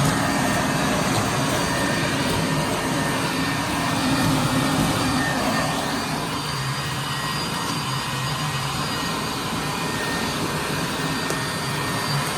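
Portland leaf blower running in vacuum mode with a hose taped to its intake, a steady whir of the fan drawing air and leaves through the hose. About six seconds in, its whine rises in pitch and the sound drops slightly.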